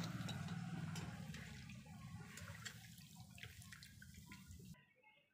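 Gobi pakodas (battered cauliflower fritters) deep-frying in hot oil in a kadai: a steady sizzle full of small crackles, fading over a few seconds and stopping abruptly near the end.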